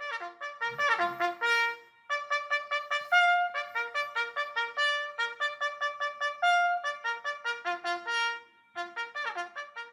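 Trumpet playing a fast military-style bugle call of short, quickly tongued notes. It pauses briefly about two seconds in and again near the end.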